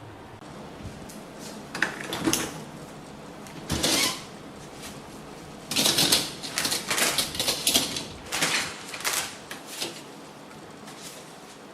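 Irregular clicks, knocks and scrapes of hard objects being handled, in uneven clusters, busiest around the middle.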